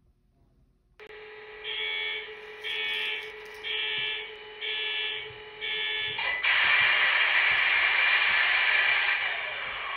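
MTH SD70ACe model locomotive's onboard sound system through its small speaker. The diesel idle sound comes on about a second in, and the bell rings five times at about one stroke a second. About six seconds in, a louder, rushing engine sound takes over and eases off near the end.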